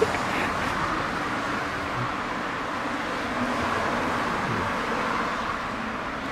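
Steady road and running noise of a Hyundai Grandeur HG, with no clicking rattle in it. The mechanic takes the underbody rattle as fixed.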